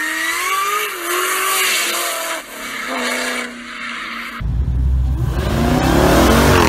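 Hard acceleration by cars. First an engine revs up with rising pitch. After an abrupt change about four and a half seconds in, a Jeep Grand Cherokee Trackhawk's supercharged V8 runs hard and deep past the microphone, climbing in pitch and then dropping as it goes by.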